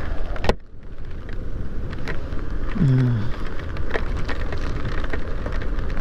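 Hero XPulse 200 motorcycle riding over a wet gravel road in the rain: the single-cylinder engine running under a steady rush of tyre and rain noise, with scattered sharp ticks. A sharp knock about half a second in, and a short hum of the rider's voice about three seconds in.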